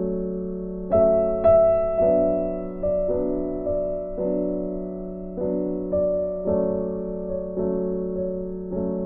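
Background music: a soft, slow piano (or electric piano) melody, its notes struck one after another and left to fade.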